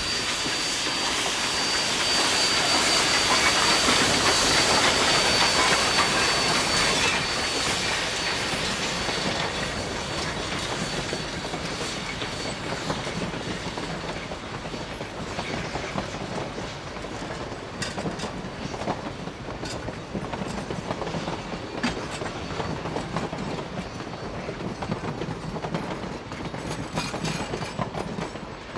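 Narrow-gauge K36 2-8-2 Mikado steam locomotive passing close, with loud hissing steam and a thin steady high whine for the first seven seconds or so. Then the passenger coaches rolling by, their wheels clicking over the rail joints.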